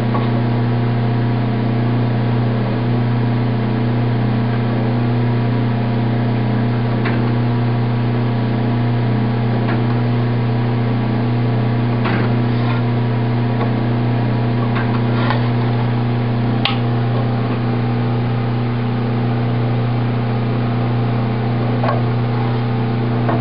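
Motor of a wheel-straightening machine running with a steady low hum, with a few faint clicks and taps.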